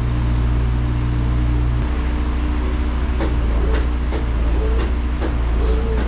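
Wood-Mizer LT15 portable band sawmill's engine running steadily at idle, a low even hum with a fine regular beat. One deeper tone in the hum drops away about two seconds in, and a few light knocks follow.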